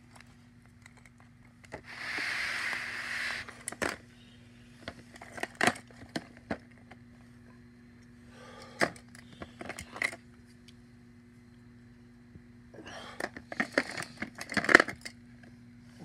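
Plastic disposable lighters clicking and clattering against each other as they are handled in a plastic bin, in scattered bursts with the loudest cluster near the end. About two seconds in there is a rustle lasting a second and a half, and a faint steady hum runs underneath.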